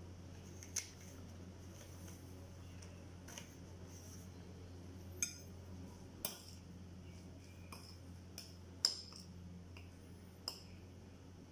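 Hands separating and rolling thin lumpia wrappers on a plate: about six sharp little clicks and taps, scattered and irregular, over a faint steady hum.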